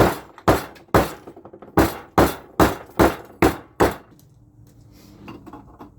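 Sharp metal blows on a metal exhaust pipe, most likely from a hammer: about nine strikes at roughly two a second, stopping about four seconds in.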